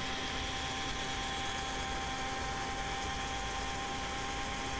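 Anex electric blender's motor running steadily, blending eggs and sugar into a batter to dissolve the sugar. An even hum with a few steady tones in it.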